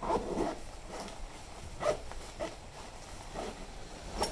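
Nylon fabric of a folded pop-up shelter tent rustling in irregular bursts as it is stuffed into its carry sack. The loudest rustles come at the start and about two seconds in.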